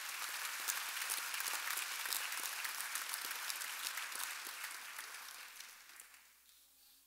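Audience applauding, the clapping tapering off and dying away near the end.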